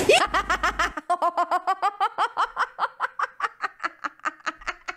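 A woman's long fit of high-pitched laughter: a rapid run of 'ha' pulses about six a second, growing fainter toward the end.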